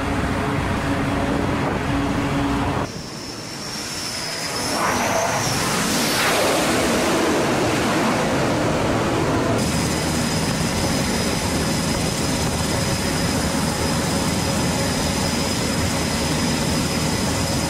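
Jet engine noise on an aircraft carrier flight deck: a steady rush with a high whine. A jet passes with a rush that swells and then falls away about six seconds in, and the sound changes abruptly twice where the footage cuts.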